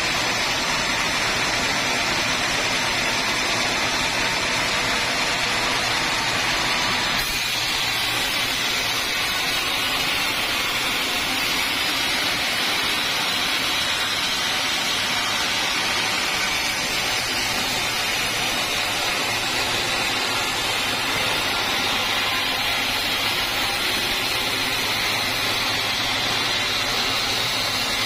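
Band sawmill running steadily as its blade cuts lengthwise through a teak log. The tone shifts about seven seconds in.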